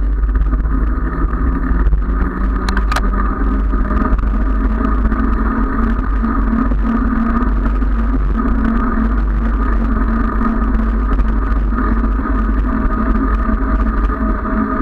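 Wind rushing over the microphone of a handlebar-mounted camera and bicycle tyres rolling on asphalt: a steady, loud noise with a constant hum.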